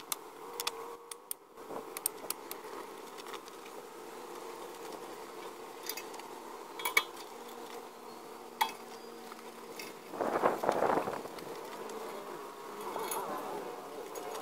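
Metal clinks and knocks from a trailer being set on jack stands and wooden blocks, over a steady buzzing hum, with a louder scraping rattle about ten seconds in.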